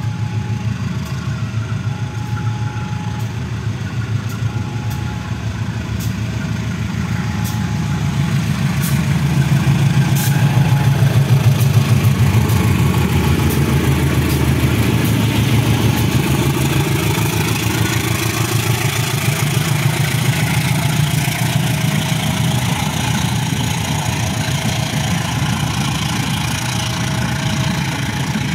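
KAI CC201-class diesel-electric locomotive hauling a passenger train past with its engine running heavily; the rumble builds to its loudest about ten to twelve seconds in, then the coaches roll by. A two-tone electronic warning signal repeats every second or two, and there are scattered sharp clicks in the first ten seconds.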